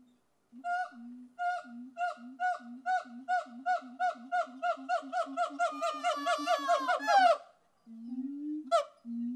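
A strange animal call: a long series of short sharp notes alternating with a lower note, speeding up steadily and ending in a downward slide, followed after a brief pause by a rising low note and another call near the end.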